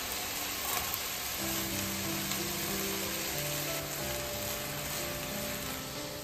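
Diced skin-on chicken thigh sizzling steadily in a nonstick frying pan, with diced bamboo shoots tipped in and stirred through with a spatula.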